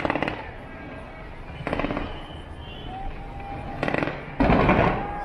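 Aerial fireworks going off from the Space Needle: four sudden bursts, the last and loudest about four and a half seconds in, lasting about half a second.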